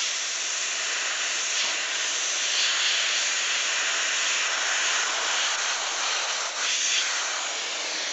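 Double-action airbrush spraying paint: a steady hiss of compressed air that swells a little now and then.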